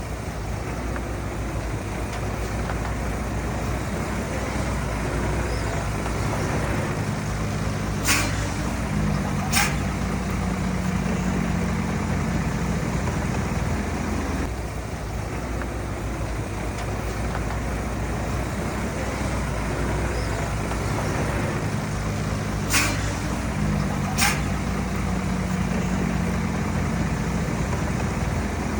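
Bulldozer's diesel engine running steadily, with two pairs of sharp metallic clanks, about a quarter of the way in and again about three quarters in. The engine note firms up after each pair.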